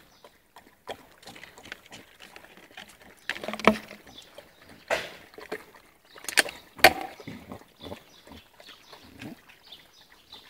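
Plastic bag crinkling and rustling in irregular bursts, with a few sharp crackles, while puppies eat.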